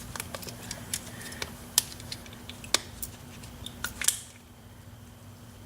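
Light irregular clicks and taps from handling a metal euro profile lock cylinder as a rubber band is wrapped around it to hold the wire pin-retaining tool in place. The clicks stop about four seconds in.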